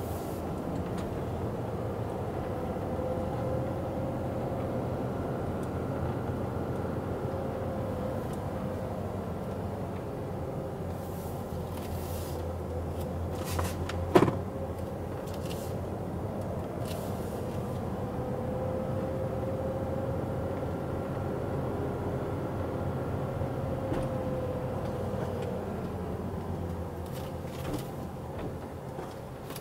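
Car engine and road noise heard inside the cabin while driving, the engine note slowly rising and falling twice as the car speeds up and slows down. There is one sharp knock about halfway through.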